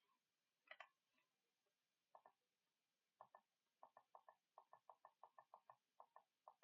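Faint computer mouse clicks: a few single clicks, then a fast, even run of about four to five clicks a second from about halfway in.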